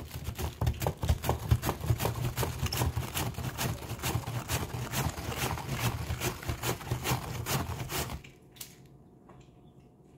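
Cabbage being shredded on a mandoline slicer: a quick, steady run of crisp slicing strokes as the wedge is pushed back and forth over the blade, stopping about eight seconds in.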